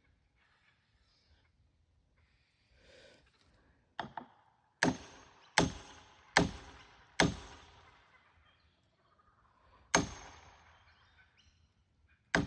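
Seven sharp blows striking a felling wedge driven into the back cut of a hung-up dead tree, each with a short ringing decay. Five come in a steady run about once every 0.8 s from about four seconds in, then one more near ten seconds and one at the end; the wedge is being driven to tip the tree over.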